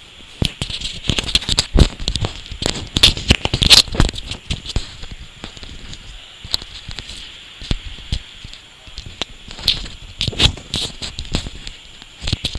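Irregular clicks and crackling over a steady hiss, busiest in the first four seconds and again around ten seconds in.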